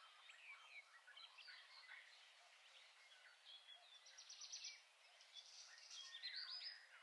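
Faint birdsong: scattered short chirps, with two brighter rapid trills about four and six seconds in.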